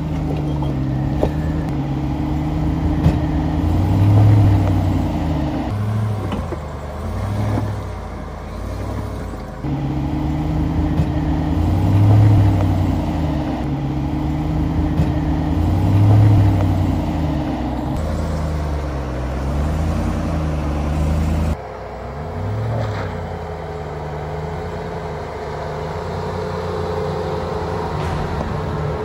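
Supercharged 6.2-litre HEMI V8 of a Ram 1500 TRX running at low speed as the truck crawls over rocks, its deep note swelling and easing with the throttle every few seconds.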